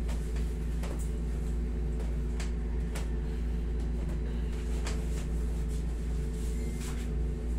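Steady low hum of a window-type air conditioner, with a few faint clicks scattered through it.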